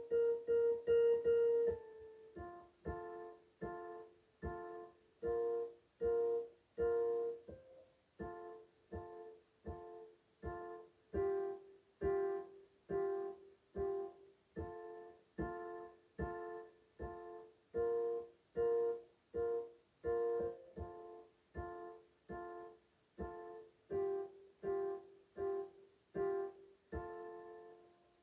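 Electronic keyboard being played: an even, unhurried run of short, detached chords, about three every two seconds, each dying away before the next. In the first two seconds there is a quicker patter of repeated notes.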